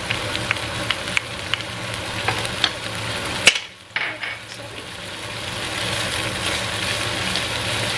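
Shallots, garlic, tofu, shrimp and crab sticks sizzling in hot oil in a nonstick wok, stirred with a wooden spatula, with scattered clicks in the first few seconds. After a sharp click about three and a half seconds in, the sizzle drops away for half a second, then comes back and grows steadily.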